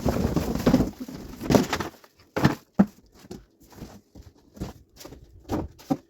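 Handling noise while unpacking: a continuous rustle of packaging for about two seconds, then a string of short, separate knocks and rustles as parts are taken out and set down.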